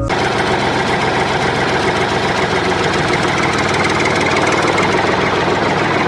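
A small engine running steadily at a constant speed, with a rapid, even chugging pulse.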